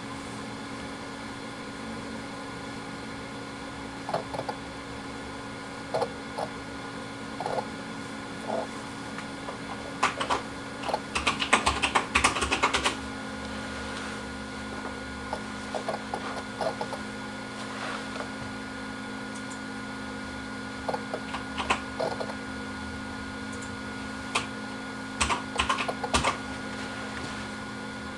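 Four WD Black 4 TB hard drives (WD4004FZWX) spinning with a steady hum, overlaid by irregular clicking and chattering as their heads seek, with a dense flurry of clicks a little before the middle and another cluster near the end.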